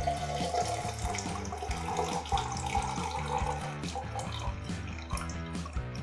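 A shaken cocktail being strained from a metal cocktail shaker into a highball glass over ice: a steady pouring, splashing stream that thins out and stops after about four and a half seconds. Background music plays underneath.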